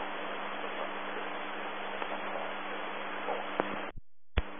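Air-traffic-control radio channel open between transmissions: a steady hiss of static with a low hum, which cuts off suddenly about four seconds in, followed by a sharp click and a brief burst of static.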